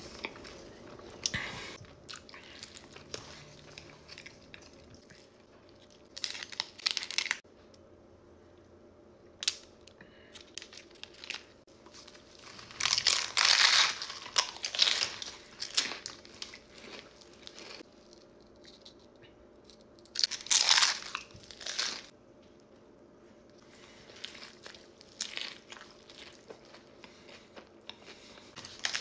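Close-miked crunchy biting and chewing of food, in loud crackly bursts about every six or seven seconds with small clicks and quieter stretches between.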